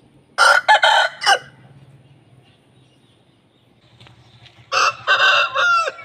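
Aseel roosters crowing twice: a short, choppy crow about half a second in, and another near the end whose last note drops in pitch.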